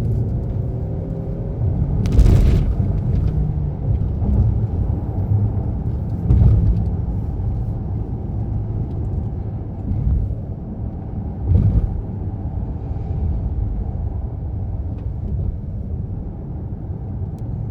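Car cabin rumble of a car driving in city traffic, a steady low road and engine noise, with three short knocks about 2, 6.5 and 11.5 seconds in.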